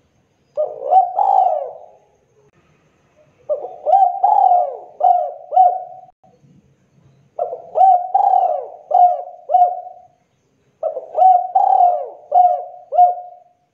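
Spotted dove cooing in four phrases: a short first one, then three longer runs of about five coos each, the 'kuk 2' song type as Indonesian bird keepers class it.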